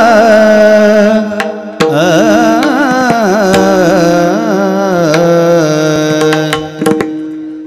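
Devotional kirtan singing: a voice holds long, wavering high notes without words over a steady drone, breaking off briefly about two seconds in before carrying on. A few sharp percussion strikes sound now and then.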